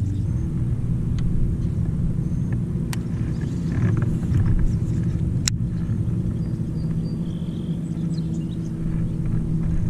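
A boat motor running steadily with a low, even hum, with a sharp click about five and a half seconds in.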